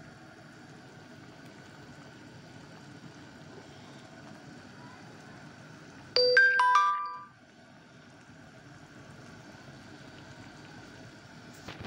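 A quick run of about four bell-like chime notes, lasting about a second, over the steady low bubbling of thick tamarind chutney simmering in a pan.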